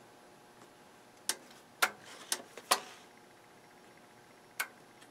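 About six sharp clicks at irregular intervals, most of them bunched between one and three seconds in, with one more near the end.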